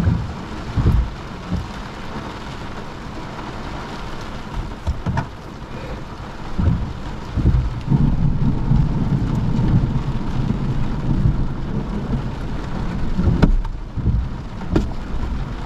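Heavy rain falling on a car's roof and windscreen, heard from inside the car, with a low rumble of thunder from about eight to twelve seconds in. A few sharp knocks stand out, the loudest near the end.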